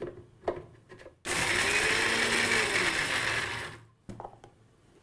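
Electric mixer-grinder running for about two and a half seconds, grinding shallots, pepper, cumin, coriander seeds, garlic and ginger into a coarse masala; the motor's pitch rises and then falls before it stops. A few light clicks of the steel jar and lid being set in place come before it starts.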